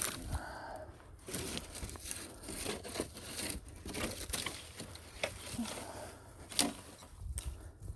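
Dry branches and twigs crackling and snapping in irregular bursts, with sharp cracks about five and a half and six and a half seconds in.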